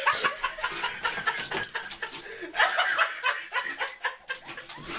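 People laughing and snickering in short, broken bursts.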